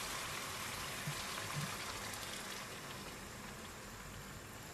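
Coconut milk poured from a bottle into a hot frying pan of pork and curry paste, with a steady sizzling hiss that slowly fades.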